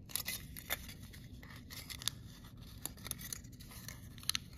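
Aluminum foil crinkling as fingers fold and pinch it, a string of short, irregular crackles.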